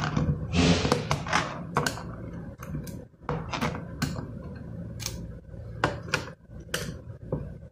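Irregular small clicks and scrapes of a small screwdriver working the screws out of the plastic bottom cover of an Asus X409M laptop, over a steady low hum.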